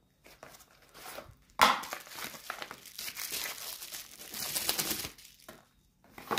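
Knife packaging being handled as a Spyderco box is opened and the knife unwrapped: crinkling and rustling of the wrapping for about three and a half seconds, starting suddenly and loudly about a second and a half in.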